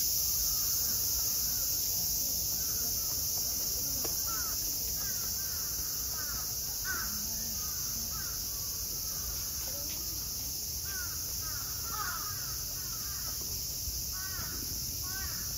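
Summer cicadas keep up a steady high hiss, while crows caw repeatedly in short clustered series over it.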